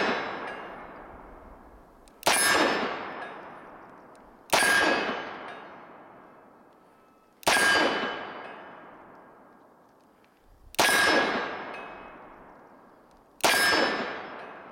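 Smith & Wesson 586 Classic .357 Magnum revolver firing five single shots of full-power .357 Magnum, about two to three seconds apart, each followed by a long echoing decay. The last shot empties the six-shot cylinder.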